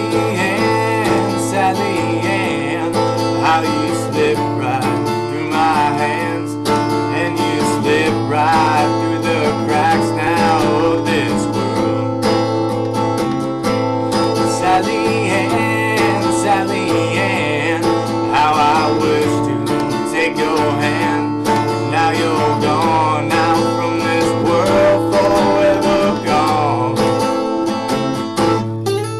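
Acoustic guitar playing an instrumental tune without singing, with a melody line above the chords.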